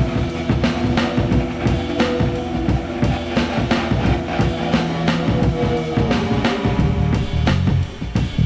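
Music with a driving drum-kit beat, kick and snare hitting many times a second over sustained low tones.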